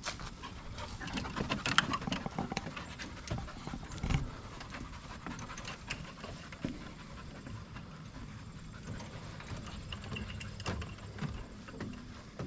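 Panting breaths together with footsteps and a dog's paws tapping on metal-grate stairs.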